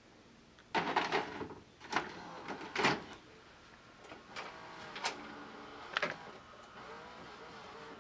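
A VHS cassette pushed into a VCR and drawn in by the deck's loading mechanism: a series of clicks and clunks, with a motor whirring between the later ones as the tape is threaded and play starts.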